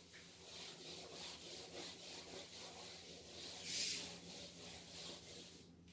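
A whiteboard being wiped clean with an eraser: a series of faint rubbing strokes, the loudest about four seconds in.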